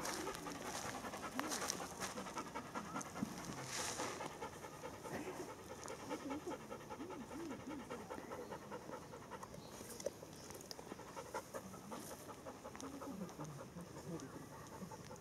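Bernese mountain dog panting steadily with its mouth open and tongue out.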